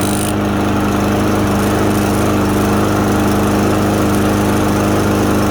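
Troy-Bilt TB110 push mower's 140cc engine running at a steady speed. It runs on its own after its clogged carburetor has been cleaned.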